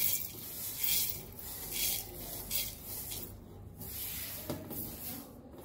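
Dry mustard seeds and other whole spices sliding off a ceramic plate into a stainless steel mixer-grinder jar, in several short hissing swishes as they are tipped and pushed along.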